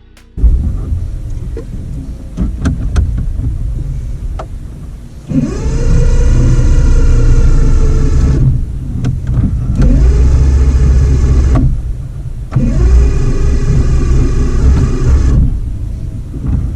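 Boat engine cranked on its starter three times, each time for two to three seconds, with a whine that rises and then holds steady, and the engine does not catch: the engine won't start.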